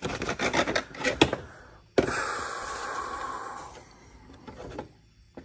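Handling of a cardboard air filter box and a paper-element engine air filter: a quick run of taps and clicks, then about two seconds in a sudden rustling scrape that fades out over about two seconds as the new filter comes out of its box and goes into the airbox.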